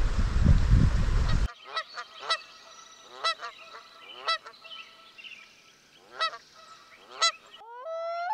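Wind buffeting the microphone, then after an abrupt cut a series of short honking bird calls, roughly one a second. Near the end a steady held tone starts with a brief upward glide.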